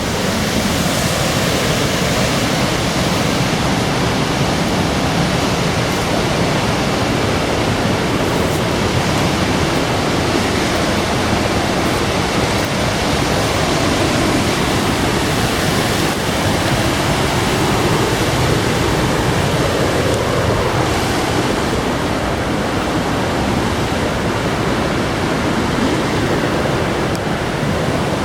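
Loud, steady rush of fast-flowing water.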